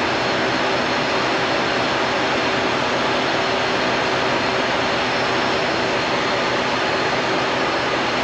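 Loud, steady whooshing machinery noise of a truck service shop, with a faint steady hum in it and no change in level.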